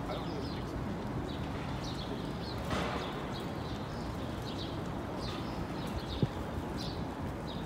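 Steady outdoor city background noise, with short high chirps recurring every second or so and a single sharp knock about six seconds in.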